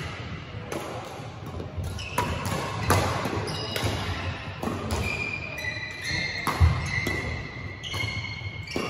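Badminton doubles rally: rackets smacking the shuttlecock in a string of sharp hits, with high squeaks from shoes on the court floor, echoing in a large hall.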